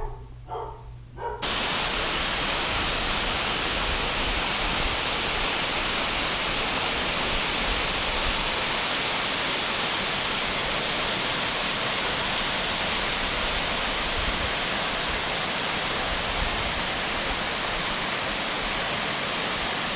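Steady, even rushing noise that cuts in abruptly about a second and a half in and then holds level.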